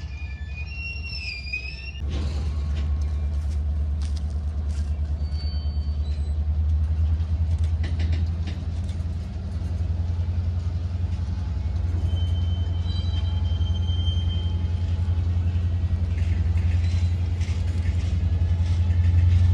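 Diesel-electric locomotive working in a rail yard, its engine giving a deep, pulsing rumble that jumps up about two seconds in and keeps building. Thin high squeals come and go over it, near the start and again in the middle.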